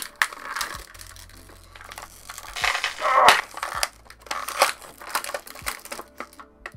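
Clear plastic toy packaging crinkling and crackling as an action figure is worked out of its plastic tray and wrapping bag by hand. It comes in irregular crackles and sharp clicks, loudest about three seconds in.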